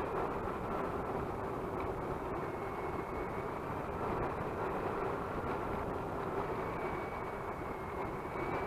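Twin brushless electric motors of a Multiplex Twin Star BL model plane running at steady throttle: a steady whine with slight wavering in pitch, over a broad rushing noise.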